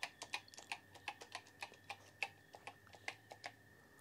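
Keys on a Commodore PET 4032's freshly repaired keyboard being typed one after another to test each key: a quick run of separate key clicks, about six a second, that stops near the end.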